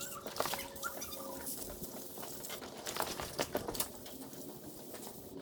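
Faint scattered clicks and ticks, with a few short bird-like chirps near the start.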